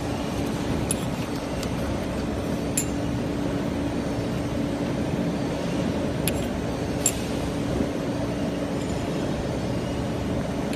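CNC tube chamfering and deburring machine running with a steady hum, with a few light metallic clinks about a second in, near three seconds, and twice around six to seven seconds.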